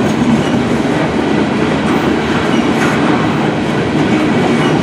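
Freight train cars rolling past close by: a loud, steady rumble of steel wheels running on the rails.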